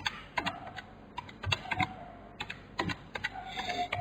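Computer keyboard typing: a scattering of irregular key clicks, as a value is keyed into the CAD software.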